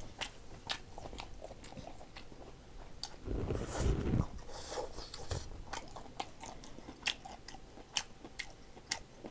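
A person chewing food close to the microphone, with wet mouth clicks and smacks repeating irregularly. A louder, longer noisy sound comes about three and a half seconds in.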